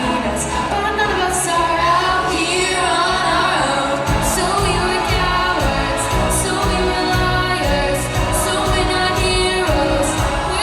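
Young voices singing a pop song over a backing track. About four seconds in, a fuller beat with bass and drum hits comes in.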